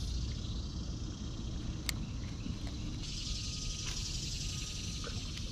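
Steady high insect drone that grows louder about three seconds in, over a low rumble, with a few light clicks.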